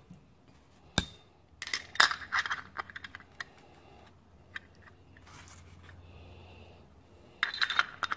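Metal parts of a 4L60E transmission servo clicking and clinking together in the hands as the piston, cover and apply pin are fitted: one sharp click about a second in, a quick flurry of clinks soon after, and another cluster near the end as the apply pin goes into the piston.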